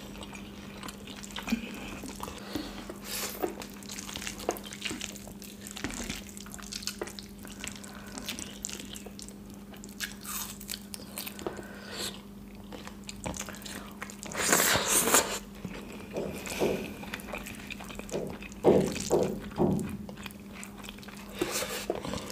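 Close-miked wet chewing and mouth smacking from people eating rice with kadhi by hand, with many small sticky clicks. There are louder clusters of smacking about two-thirds of the way through and again near the end, over a faint steady hum.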